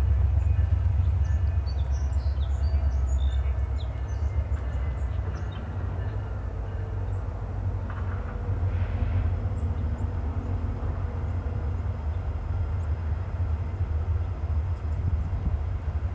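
Low, steady rumble of a Norfolk Southern freight train's diesel locomotives approaching out of a tunnel.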